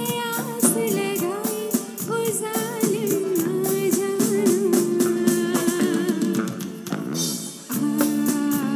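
Live band music over a fast, steady drumbeat, with drum kit, hand percussion and keyboard, and a woman singing the melody. The music thins out briefly near the end, then the full band comes back in.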